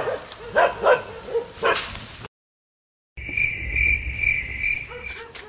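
A dog barking several times in sharp bursts, cut off abruptly about two seconds in. After a short silence comes a steady high-pitched buzz pulsing about twice a second over a low rumble.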